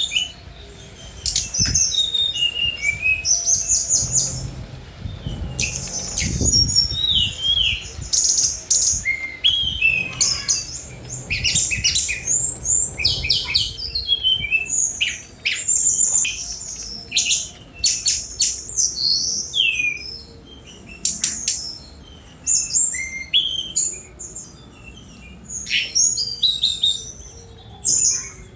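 Tledekan gunung flycatcher singing continuously: fast, varied phrases of high chirps, rapid trills and quick down-slurred whistles, one after another with only short pauses.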